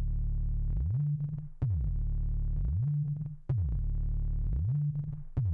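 Electronic music: a heavy synthesizer bass line that sweeps up and then down in pitch, repeating about every two seconds.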